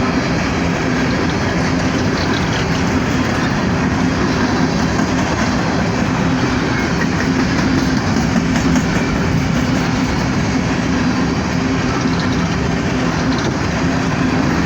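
Empty steel coal hopper cars of a freight train rolling past, a loud, steady rumble and clatter of steel wheels on the rails.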